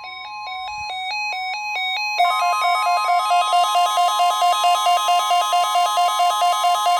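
NOAA Weather Radio 1050 Hz warning alarm tone, a steady tone sent for the weekly test, with several weather radios going into alert and beeping along with it. The alternating beeps grow louder, and about two seconds in more radios join with loud rapid pulsing beeps at several pitches.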